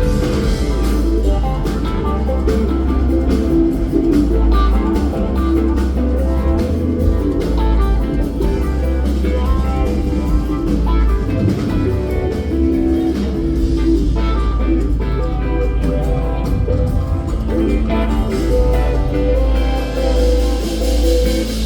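Rock band playing live: guitar lines over strong bass and drum kit.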